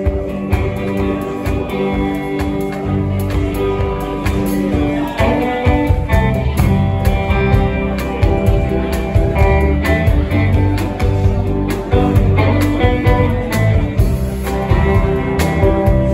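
Live band playing amplified electric guitars over a drum kit, with no singing, the bass and drums coming in fuller a few seconds in.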